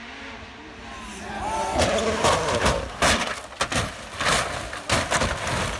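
Hyundai i20 WRC rally car crashing and rolling over down a dirt bank: a rapid run of crunching impacts starts about two seconds in and carries on to near the end.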